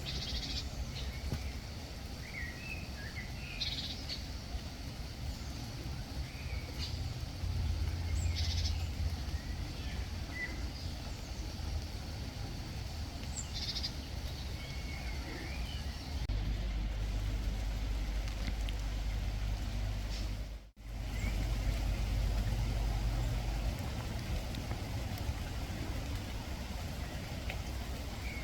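Garden birds giving short, sharp calls every few seconds with a few softer chirps between, over a steady low rumble.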